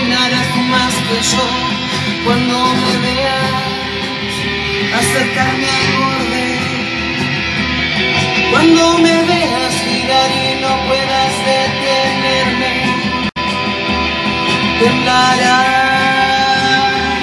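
Live band rehearsal jam: electric bass and guitar playing sustained, looping lines with cymbal strikes, and a woman's voice singing wordless, gliding lines over them. The sound briefly cuts out about 13 seconds in.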